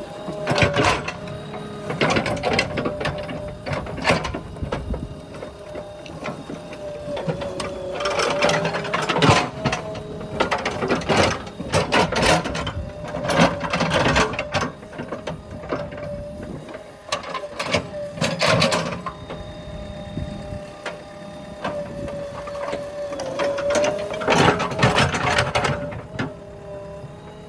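JCB digger running with a steady whine, with bursts of clanking and knocking at several points, heaviest about a third of the way in and near the end.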